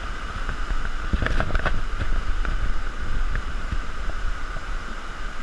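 Floodwater in a swollen creek rushing past in a steady, even rush, with low rumbling from wind on the microphone. A few faint clicks between one and two seconds in.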